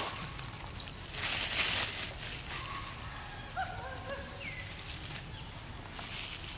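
Thin plastic bag crinkling as a young macaque pulls and chews at it, loudest for about a second near the start. A few faint short chirps come in the middle.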